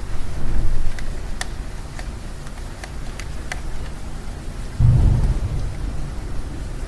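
Steady rain at an apartment window, with scattered drops ticking sharply on the window or sill. A low rumble comes in suddenly about five seconds in and fades over a second or two.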